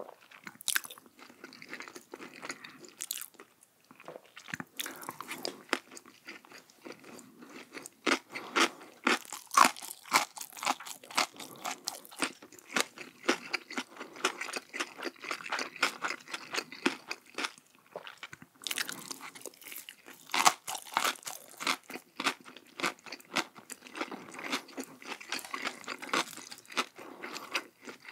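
Close-miked chewing of crunchy food: dense, crackling crunches, with louder bites about a third of the way in and again about two-thirds of the way in.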